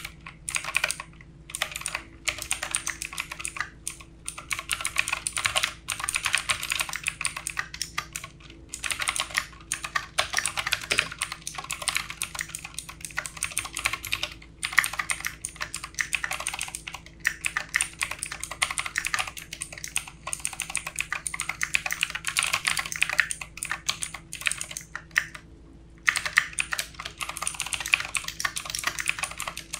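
Fast typing on a computer keyboard: quick runs of key clicks broken now and then by short pauses.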